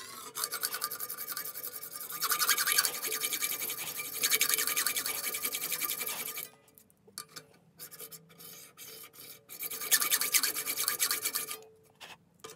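Hand hacksaw cutting through a brass bar about 6.5 mm thick clamped in a vise: repeated rasping saw strokes, with short pauses in the middle, stopping near the end.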